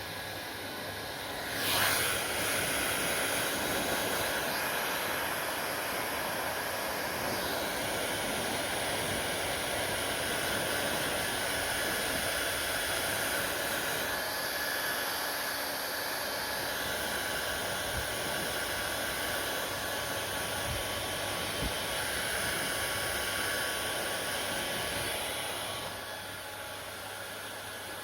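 Hand-held hair dryer blowing steadily, a rushing hiss with a faint motor whine. It jumps louder with a sharp surge about two seconds in and falls back to a quieter level near the end.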